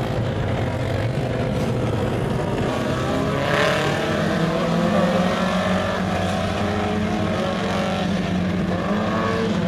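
Four-cylinder super stock race cars running laps on a dirt oval, their engines rising and falling in pitch as they go through the turns and down the straights. The sound swells as the cars come past, loudest a few seconds in.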